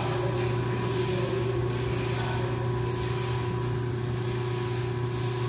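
Steady background machinery hum with a constant high-pitched whine above it, unchanging throughout.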